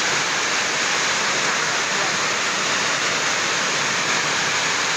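Heavy storm rain falling as a steady, even rush.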